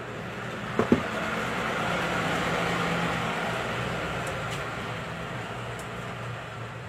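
A passing vehicle: a steady engine noise with a low hum that swells over the first few seconds and slowly fades. Two sharp knocks come just before a second in.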